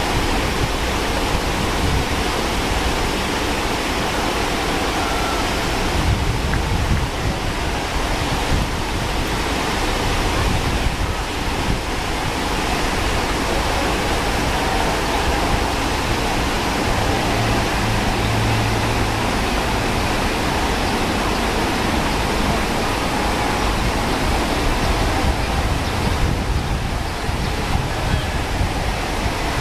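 River water rushing over rocky rapids: a steady, full rush of white water.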